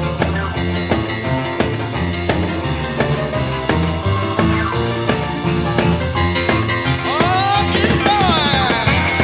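Instrumental rock and roll music with a steady beat and no singing; near the end a lead instrument plays a run of bending, sliding notes.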